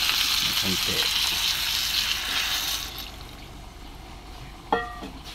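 Hot pot of sautéed chicken, carrots and potatoes sizzling loudly as a little water goes in, the sizzle dying down sharply about three seconds in. Near the end, a single sharp metallic clink that rings briefly.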